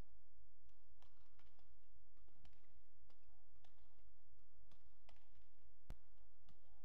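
Badminton rackets striking a shuttlecock during a rally: a string of sharp, irregularly spaced clicks, the sharpest about six seconds in, over a steady low hum.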